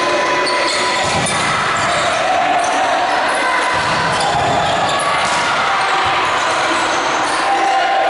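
Volleyball rally in a sports hall: the ball is struck a few times by the players, with dull thuds and players' calls echoing in the large room.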